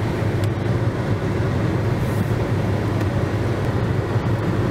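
Steady road and engine noise inside the cabin of a moving car, a constant low drone.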